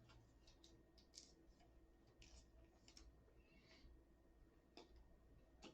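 Near silence with faint, scattered clicks and soft rustles of trading cards being handled and slid past one another.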